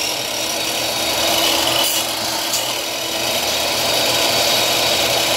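Electric miter saw (chop saw) running steadily with a high motor whine while its blade cuts short lengths of old wooden plaster lath.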